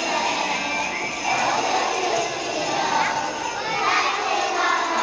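Small handheld jingle bells shaken steadily by a group of young children, with the children's voices singing together over the jingling.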